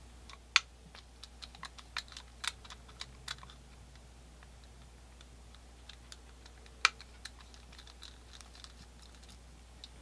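Small sharp metallic clicks and taps of a screwdriver and the steel frame of a Colt 1860 Army percussion revolver, as the screw holding the trigger-bolt spring is backed out. There is a run of light clicks in the first few seconds, and two louder clicks stand out, about half a second in and near seven seconds.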